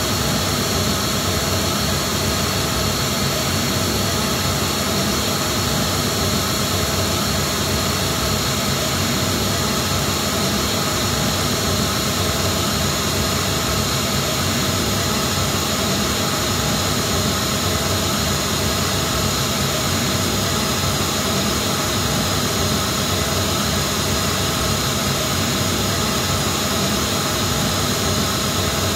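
Steady, loud pink-noise test signal played through a PA of JBL SRX815 speakers and a JBL SRX828SP subwoofer, the reference signal for a Smaart measurement and tuning of the system in the room.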